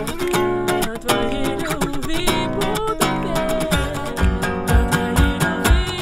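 Acoustic guitar strumming and picking a song accompaniment while a woman sings a melody over it with long held notes and no clear words. A low, regular beat comes in about four seconds in.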